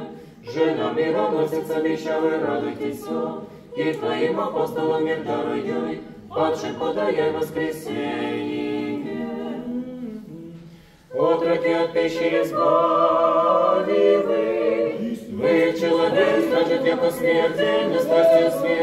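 Orthodox church choir singing a memorial chant a cappella, in several phrases separated by short pauses, the longest just before the middle.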